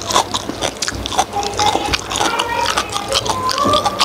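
Close-up wet chewing of soft steamed pork skin: a quick run of moist clicks and smacks from the mouth.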